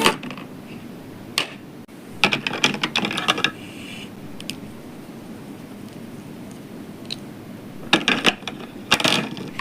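Small plastic cosmetic cases and caps being handled, opening and closing in bursts of sharp clicks and rattles: one click a little over a second in, a quick run of clicks around the third second, and another run near the end.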